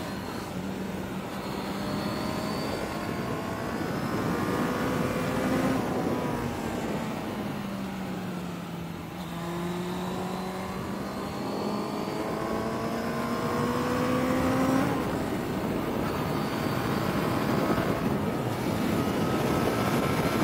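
Suzuki Bandit 600's inline-four engine pulling a motorcycle up a climb, with a rush of wind noise. The revs sag a few seconds in, then rise steadily and drop abruptly about three-quarters of the way through before building again.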